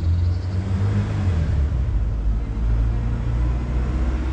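A loud, steady low rumble with a noisy hiss above it.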